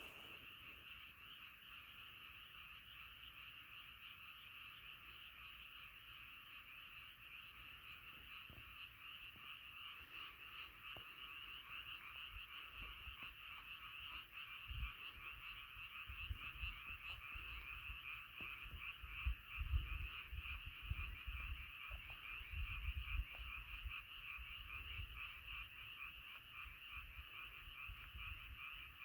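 A chorus of many frogs calling together: a dense, steady mass of fast-pulsing croaks. From about halfway through, irregular low rumbles and thumps come in underneath, loudest a little past the middle.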